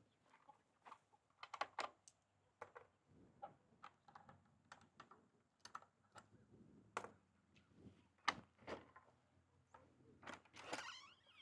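Faint, irregular taps and clicks, one every half second or so, with a short louder rustle near the end.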